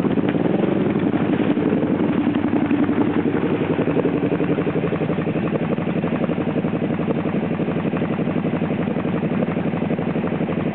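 Kawasaki ATV V-twin engine running at idle. The pitch shifts a little in the first couple of seconds, then holds steady.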